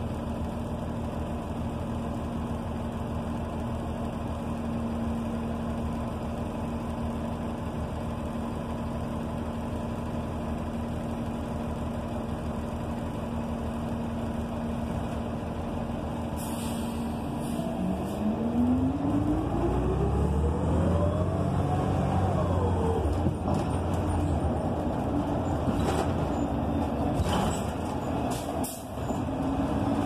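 Interior sound of a 2008 NABI 45C transit bus with a Cummins Westport ISL G natural-gas engine and Allison B400R transmission: a steady low engine note, then a short air hiss a little past halfway and the bus speeding up, with a whine rising in pitch that drops at a gear change. More brief air hisses near the end.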